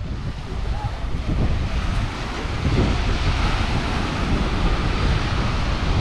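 Atlantic surf breaking and washing up the sand, a steady hiss that swells about two seconds in, with wind buffeting the microphone underneath.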